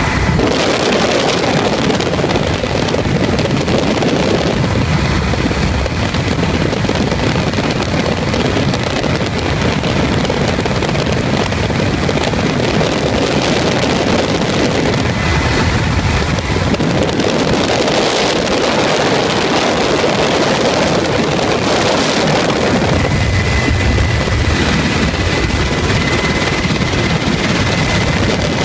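Helicopter engine and rotor noise mixed with wind rushing past an open cabin window, loud and steady throughout. A thin high whine rides over it at the start and again in the last few seconds.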